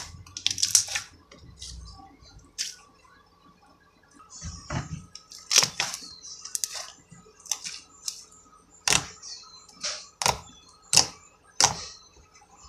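Slime being handled: a string of sharp pops and clicks, a few at first, then about one a second.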